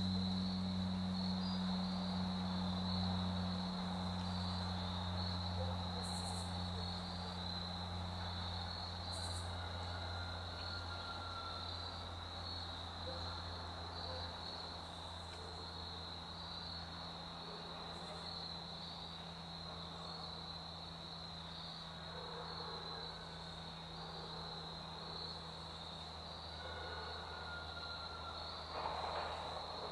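Steady chorus of insects in the woods, an even high trill that pulses finely without a break. Beneath it runs a low steady hum that slowly fades.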